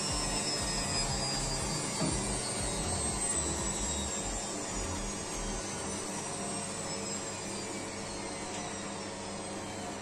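Bosch Maxx 7 washing machine's drum spinning down from about 600 rpm at the end of its test-mode spin check, the motor's whine falling steadily in pitch. A low rumble stops about halfway through, and there is one light knock about two seconds in.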